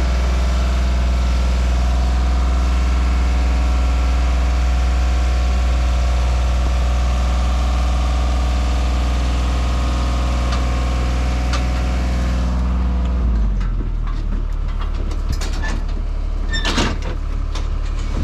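An engine or similar machine running steadily with a deep hum, which drops away sharply about thirteen seconds in. A few sharp clicks and knocks follow.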